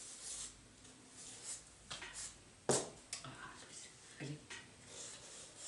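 Felt-tip pen strokes scratching on notebook paper, faint and intermittent, with a sharp knock a little under three seconds in and a brief vocal sound about four seconds in.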